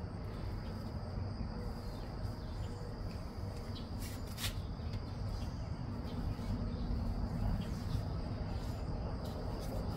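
Steady high-pitched chirring of insects outdoors over a low background rumble, with a couple of faint clicks about four seconds in.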